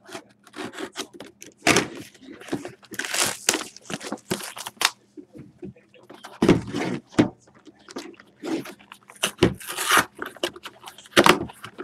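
A trading-card box and its wrapped pack being handled and opened: irregular crinkling, rustling and tearing of the packaging, with sharp clicks and knocks throughout.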